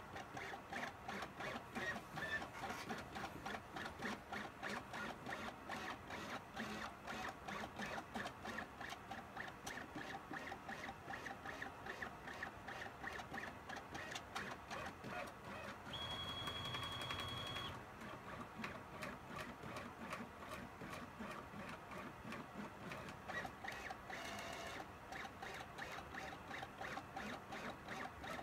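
CNC pen plotter's drive motors running in short, stuttering pulses as the pen traces a line. About 16 seconds in, a steady higher whine lasts a little under two seconds, and a brief tonal whine comes near 24 seconds.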